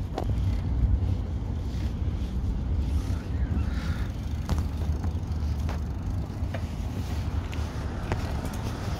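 Wind buffeting the microphone in a steady low rumble, with a few faint, sharp clicks scattered through it.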